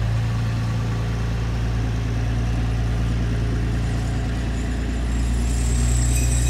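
Flatbed tow truck's engine running steadily with a low hum while it winches a flooded car out of the water.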